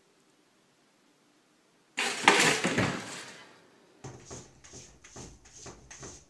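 Near silence, then about two seconds in a sudden loud clatter that dies away over about a second. From about four seconds a run of light knocks, about three a second, as a cat paws at a mirror leaned against a door.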